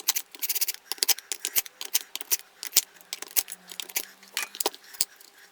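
Light, irregular metallic clicks and taps of a hand tool working the crankcase screws of a small two-stroke brushcutter engine, several a second, with a few sharper knocks among them, as the crankcase halves are drawn together evenly.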